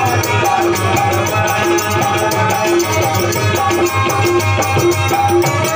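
Live group music: a harmonium playing a held, repeating melody over a quick, steady beat of hand claps and rattling percussion, with a low beat underneath.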